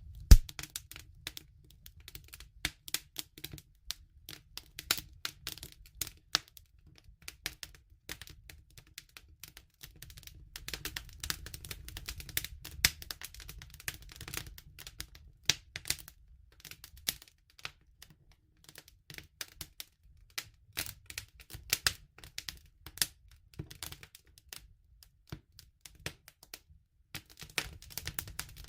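Wood fire crackling: an irregular run of sharp pops and snaps, several a second, over a low steady rumble, with the loudest snap about a third of a second in.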